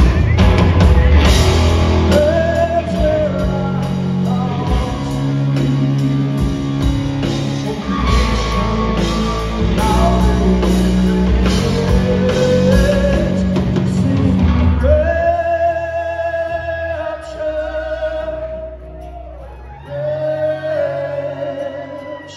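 Rock band playing live: a man singing over guitars, bass and drums with steady cymbal hits. About fifteen seconds in, the drums and bass drop away, leaving long held sung notes over lighter guitar, quieter than before.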